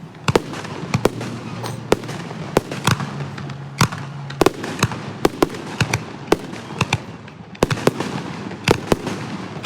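Fireworks bursting overhead in an irregular string of sharp bangs, two or three a second, with a low hum under the first half.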